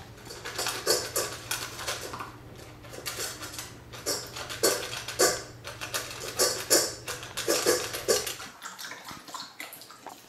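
Golden retriever puppy eating dry kibble from a stainless steel bowl: irregular clinks and rattles of kibble and muzzle against the metal bowl, with crunching.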